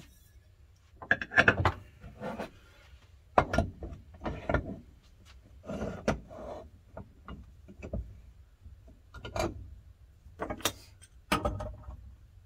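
Aluminium injection-mold plates being handled and clamped in a metal drill-press vise: irregular clanks, knocks and metal-on-metal scraping, with the louder knocks about a second and a half in and about three and a half seconds in.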